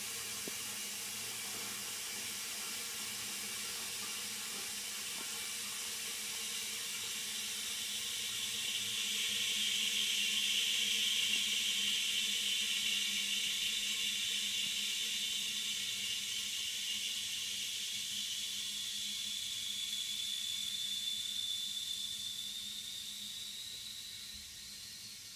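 Dauntless high-level plastic cistern refilling through its float valve: a steady water hiss that swells about a third of the way in. It then narrows into a thin, slightly rising whistle that dies away near the end as the valve closes on a full cistern.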